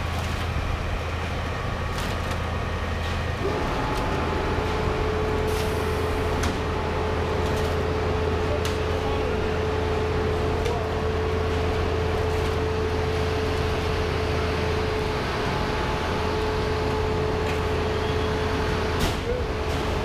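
Concrete boom pump running during a pour: a steady low engine drone, with a steady whine joining in a few seconds in and occasional sharp knocks.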